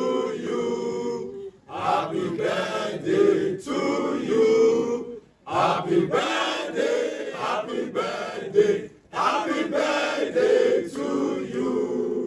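A group of men singing together unaccompanied, in four phrases with short breaks between them.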